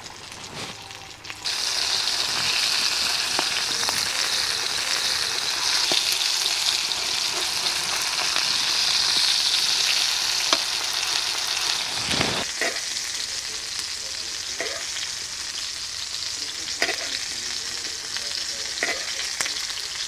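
Pomfret fish frying in shallow oil on a griddle with curry leaves, a loud steady sizzle. The sizzle jumps up about a second and a half in and eases off a little after about twelve seconds, with a few short knocks later on.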